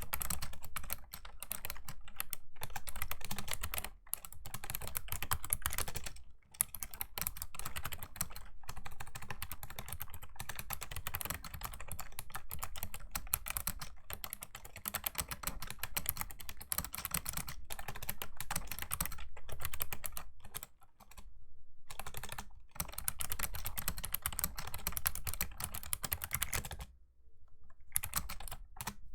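Fast, continuous typing on a Razer Ornata Chroma V2 keyboard, its mecha-membrane keys clicking in a dense stream. The typing breaks off briefly a few times, with a longer pause near the end.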